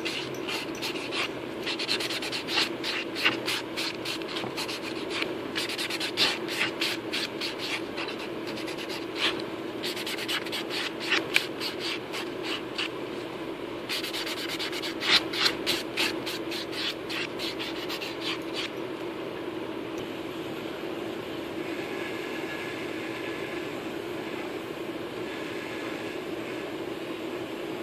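Nail file rasping across a fingernail in quick back-and-forth strokes, in spells with short pauses, until the filing stops well past halfway. A steady low hum runs underneath.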